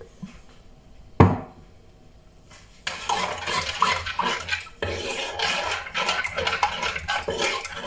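A utensil stirring a liquid marinade in a metal bowl, clattering and scraping against its sides from about three seconds in. One sharp clink about a second in.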